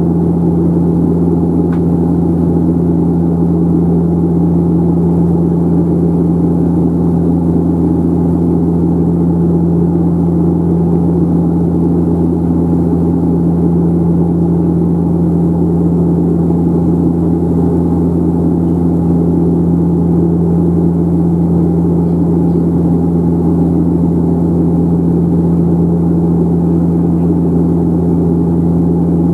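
Pratt & Whitney PW150A turboprop and six-bladed propeller of a De Havilland Canada Dash 8 Q400, heard from a cabin seat beside the engine in flight: a loud, steady drone with a strong low hum over a dense rumble, unchanging throughout.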